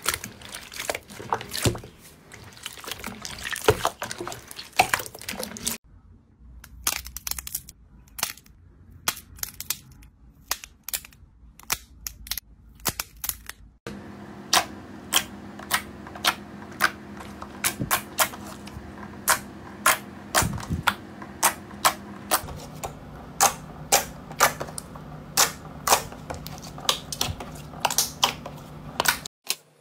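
Hand-squeezed slime: wet squelching and sloshing in a basin of water at first, then a run of sharp, crisp pops and clicks, about two a second, as the slime is pressed and kneaded.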